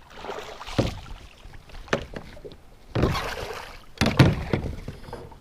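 Kayak being paddled: a splash of water and a knock against the hull about once a second.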